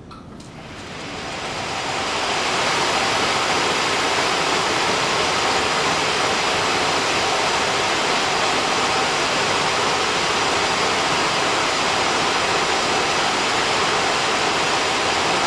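Roll-to-roll web handling test bench starting up and running with a material web threaded through its rollers. A steady rushing noise rises over the first two seconds or so, then holds steady.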